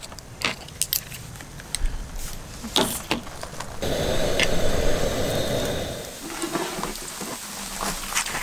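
Metal tongs and forks clinking and clattering in a few sharp knocks, then a rushing noise for about two seconds near the middle before more light clatter.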